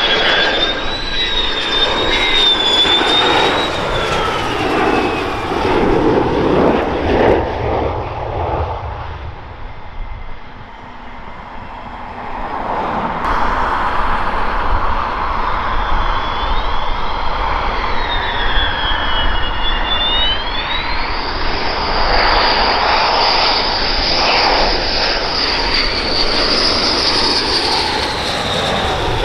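Fighter jets on low landing approach: jet engine noise with a high turbine whine that wavers in pitch. It dips quieter about ten seconds in, then builds again as an F-15E Strike Eagle's twin turbofans come in close, with a strong, steady high whine near the end.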